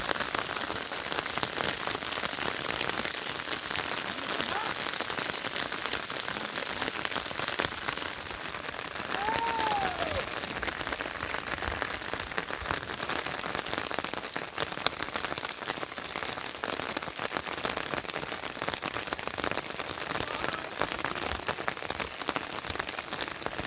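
Steady rain falling, an even hiss full of fine patters, with one short rising-and-falling call about ten seconds in.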